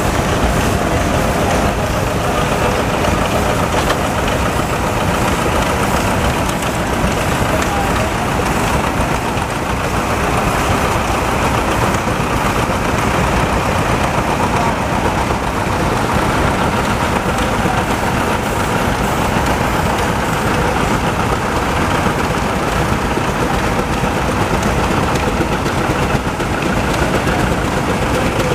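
Steady mechanical running noise of engines, even and unbroken, with a faint steady whine in it.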